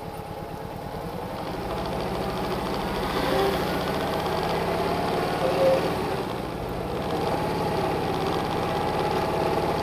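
Motorcycle engine running as the bike rides along, growing louder over the first few seconds, dipping briefly, then picking up again.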